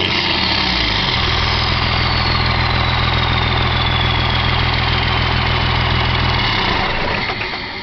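Dodge Cummins inline-six turbodiesel running steadily through a 4-inch turbo-back exhaust, with the turbo's high whistle slowly falling in pitch as it spools down. Near the end the engine note drops away and the sound gets quieter.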